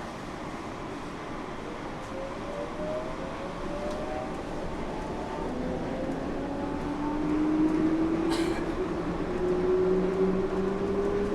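Yurikamome train's traction motors whining, rising steadily in pitch and getting louder over a running rumble as the train accelerates away from a station. A short sharp rattle is heard about eight seconds in.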